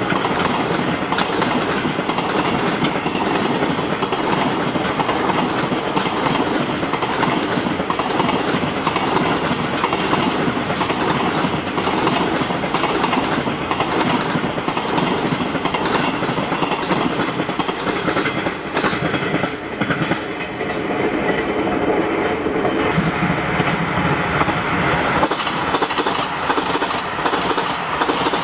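A long freight train of container flatcars rolling past: a steady rumble of wheels on rail with a rhythmic clickety-clack over the rail joints. Near the end, a diesel express train adds its own passing noise on the nearer track.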